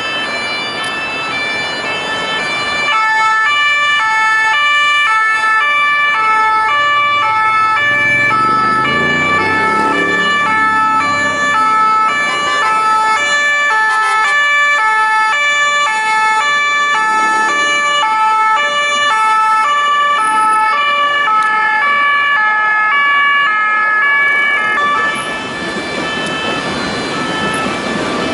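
French police two-tone sirens ("pin-pon") sounding, alternating between a high and a low note. About three seconds before the end the sirens stop, leaving the noise of city traffic.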